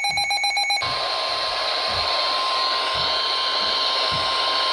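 A pulsing electronic alert beep cuts off under a second in, and the NOAA Weather Radio 1050 Hz warning alarm tone begins, one steady tone over heavy radio static from a weak signal. The tone signals that a warning broadcast is about to follow.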